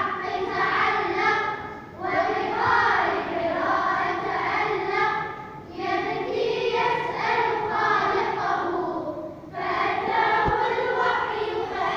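Singing voices in long held phrases of about three to four seconds each, with short breaks between them.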